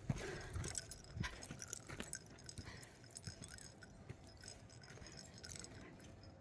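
Faint footsteps and rustling on a park path, with scattered light clicks and a small metallic jingle. The sounds thin out about halfway through.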